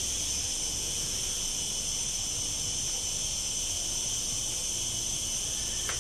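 Insects chirring in a steady, high-pitched drone.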